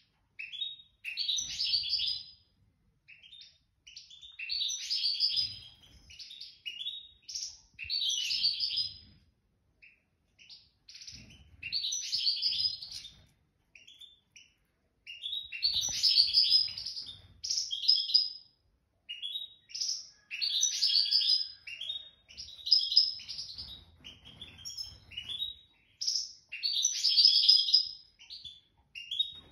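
A goldfinch singing: bursts of rapid, varied twittering and trills, each lasting one to three seconds, with short pauses between phrases.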